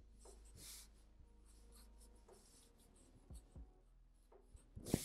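Black marker scratching across paper in a series of short, faint strokes, with the loudest stroke near the end.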